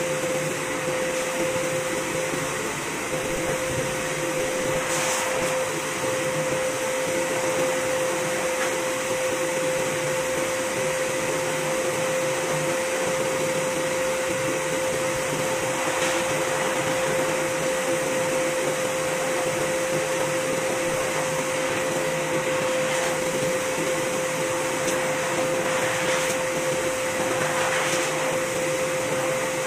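High-velocity pet grooming dryer (force blower) running steadily, with air rushing from its hose and a constant motor whine.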